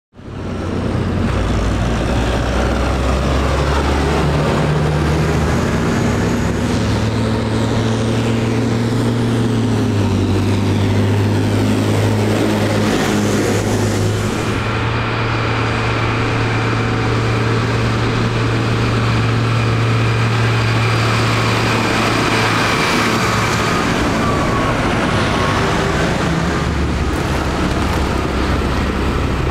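Tractor diesel engines running in a steady, loud low drone that starts abruptly and holds throughout.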